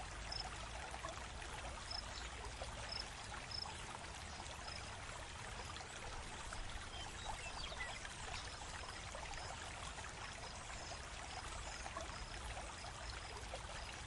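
Faint steady background hiss with faint, regularly spaced high ticks.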